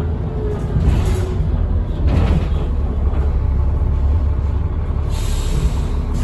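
Transbus Trident bus's Cummins ISBe diesel engine running with a steady low rumble, and a hiss of air lasting about a second near the end.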